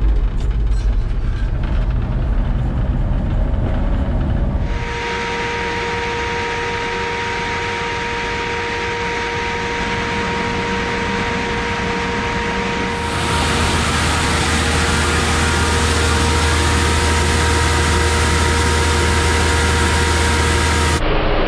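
Combine harvester running while harvesting corn, heard in three successive shots: a deep engine rumble, then a steadier drone with a high whine, then a louder, low drone.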